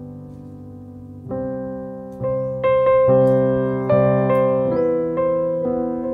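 Background piano music: sustained chords struck about once a second, growing louder about a second in.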